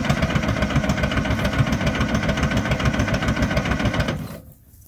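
Old Hy-Dynamic Dynahoe backhoe's engine running with exhaust smoke rising, a rapid, even pulse. It cuts off suddenly about four seconds in.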